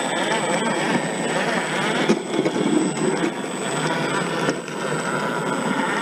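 An RC4WD Desert Runner electric 1/10-scale RC truck running, its motor and drivetrain with a steady noisy rush, louder for a moment about two seconds in.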